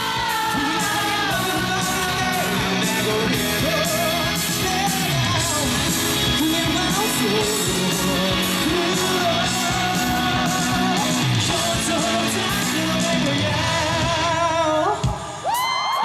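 Live rock band with electric guitar playing under a wavering sung vocal line. The band breaks off about a second before the end.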